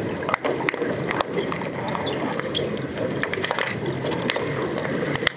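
Busy underwater noise of a swimming pool during an underwater hockey game, heard from below the surface: a steady dense rushing, with frequent sharp clicks and knocks scattered through it.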